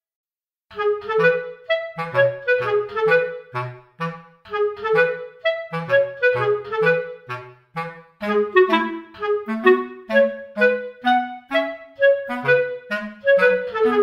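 Background music: a bouncy melody of short, detached notes over a lower bass line, starting just under a second in.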